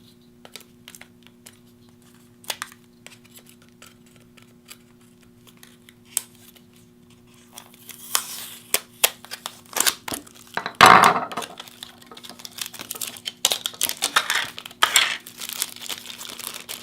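Packaging being unwrapped by hand: scattered light clicks and taps, then crinkling and rustling from about eight seconds in, loudest around eleven seconds.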